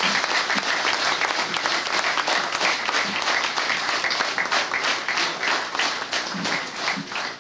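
Audience applauding: many people clapping together in a dense, steady patter that thins out near the end.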